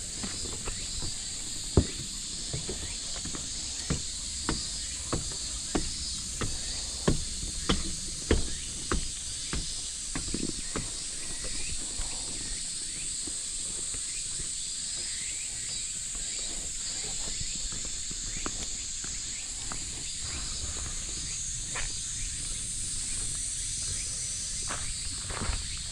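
Steady high-pitched drone of a summer cicada chorus, with footsteps walking at an even pace, about one and a half steps a second. The steps stop about halfway through and start again near the end.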